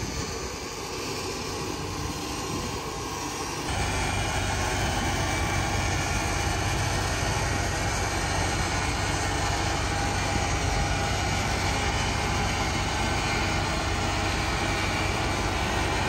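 A steady engine drone, which gets louder about four seconds in as a low steady hum joins it.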